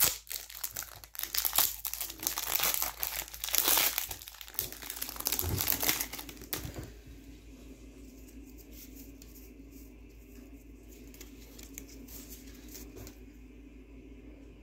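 Foil wrapper of a Pokémon card booster pack crinkling loudly as it is handled and opened. The crinkling stops about seven seconds in, leaving faint room hum.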